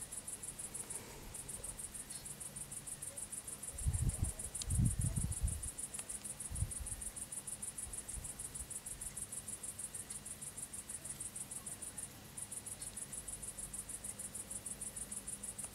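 Insects trilling: a fast, even pulsing high chirp, several pulses a second, that breaks off briefly about a second in and again near twelve seconds. A few dull low thumps come in the middle and are the loudest sounds.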